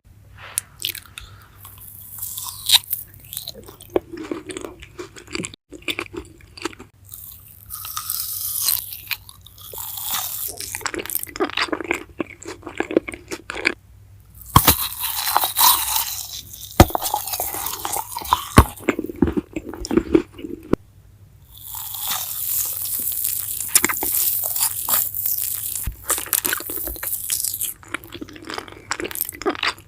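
Close-miked biting and chewing of pizza-shaped jelly candy: sticky, wet squishes and crunchy crackles in bursts, with short pauses between bites.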